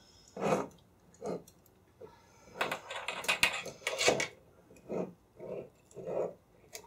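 Hands handling wire, a thread spool and a pen on a tabletop: a string of light taps, clicks and rustles, busiest from about two and a half to four seconds in.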